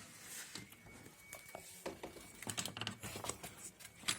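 Scattered light clicks, taps and rustles of the plastic air-filter housing and its cover being handled and held open, with the densest run of clicks from about two seconds in.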